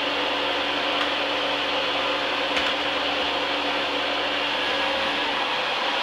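Vacuum cleaner motor running steadily, an even whir with a constant hum.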